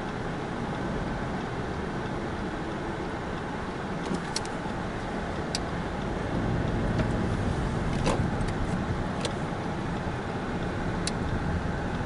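Interior noise of a Subaru Impreza Sport 1.6 (FB16 engine, Lineartronic CVT) pulling away at low speed: a steady engine and road rumble that grows louder about halfway through as the car picks up speed, with a few faint scattered clicks.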